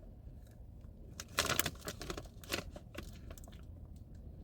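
Plastic candy bag crinkling in a few short bursts, the longest about a second and a half in and another about a second later, as gummy candies are handled.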